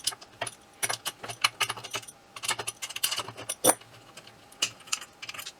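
Small ratchet and socket clicking in quick irregular runs while backing off a small nut that is held fast with Loctite.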